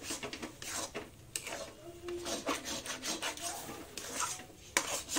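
Wooden spatula scraping and stirring a thick pea-and-potato masala paste around an aluminium kadhai, in a run of quick, irregular scraping strokes.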